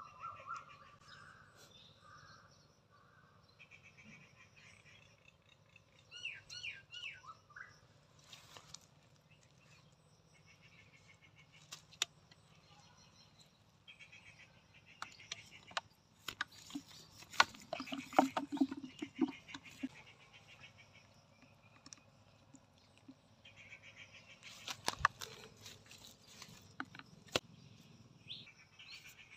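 Small birds chirping and calling in short repeated phrases. Around the middle and again near the end come bursts of sharp clicks and knocks from handling, the loudest sounds.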